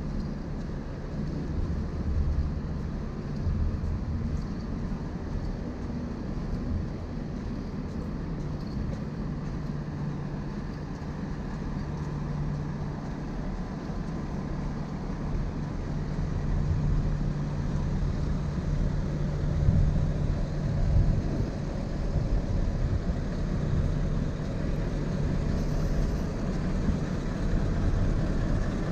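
Steady low machinery drone from a large cruise ship running its onboard plant at berth, a low steady tone under a broad rumble, growing somewhat louder past the middle.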